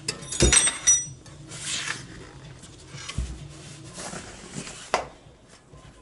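Old steel bicycle wheel clattering and clanking as it is handled, with a brief metallic ringing, then the rubber tire rubbing and scraping along the rim as it is worked off by hand, with a sharp click about five seconds in.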